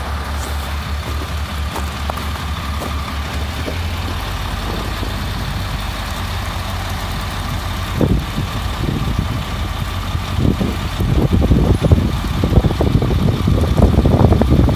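Crane truck's engine running steadily, with a steady whine above it. From about eight seconds in, irregular low rumbling surges grow louder.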